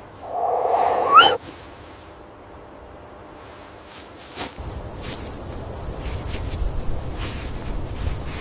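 A single animal call about a second long, rising in pitch at its end. A few seconds later a steady, high-pitched insect chorus starts suddenly and runs on with a low rumble under it.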